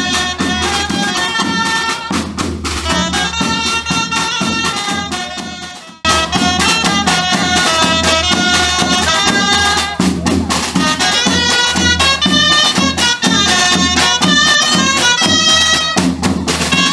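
A small folk street band playing a lively tune: a woodwind and a trumpet carry the melody over a snare drum and a bass drum. The music fades out about six seconds in, then comes back at full level.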